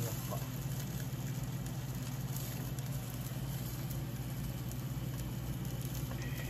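Yellowtail fish sizzling on an electric grill: a soft, steady crackle over a steady low hum.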